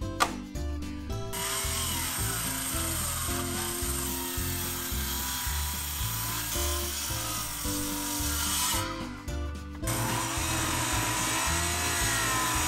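Handheld circular saw crosscutting the end of a thick monkey pod slab, starting about a second in, its whine dipping and rising as the blade loads in the wood. It stops briefly about nine seconds in, then cuts on. Background music with a steady beat underneath.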